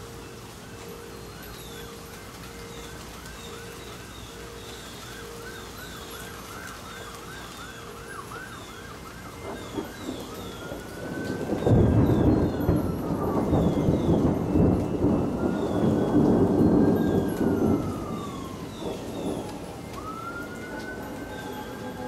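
A long roll of thunder starts about twelve seconds in and rumbles for several seconds, the loudest sound. Under it an emergency-vehicle siren sounds throughout, first in quick repeated yelps, then from about halfway in slow rising-and-falling wails.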